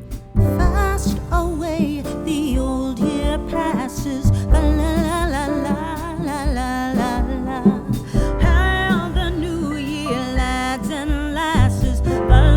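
Background song with a singer's voice over a steady beat and bass.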